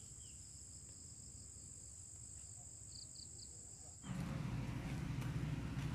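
Steady high-pitched insect trill, with three short chirps about three seconds in. About four seconds in it cuts off and a louder steady low rumble takes over.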